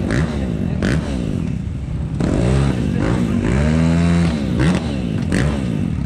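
Motocross bike engine running and being revved up and down in a few slow swells, its pitch rising and falling, with a few sharp knocks in between.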